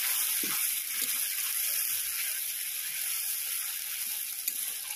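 Spice paste of onion, tomato and ginger-chilli sizzling steadily in hot mustard oil in a kadai (wok), a splash of water just added so the masala doesn't burn. A spatula stirs and scrapes the pan now and then.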